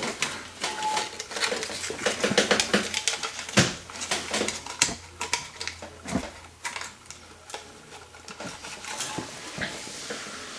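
Tape rustling and crinkling with light metal clicks and knocks as a nut is taped to the underside of an SR20DET cylinder head and the head is tilted and set back down. The clicks are busy at first and thin out after about six seconds.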